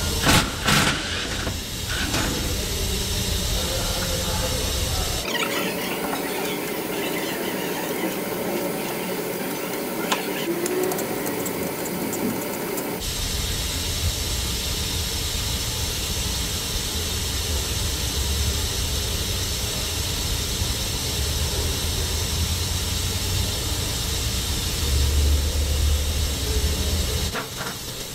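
Steady hiss and low hum of machine-shop background noise, with a few sharp clicks of hand tools on the chuck in the first second. The sound changes character about 5 seconds in and changes back about 13 seconds in.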